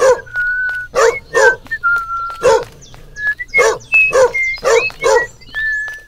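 Dog barking in a string of about eight short barks, irregularly spaced, with thin whistle-like tones held between them.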